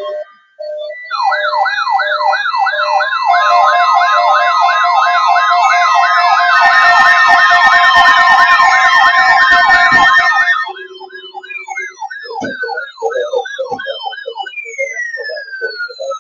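Electronic sirens, several sounding at once. A loud, rapid rising-and-falling yelp, about two to three cycles a second, has long sliding sweeps layered over it. About ten and a half seconds in it drops in loudness and breaks into slower falling sweeps and broken warbles.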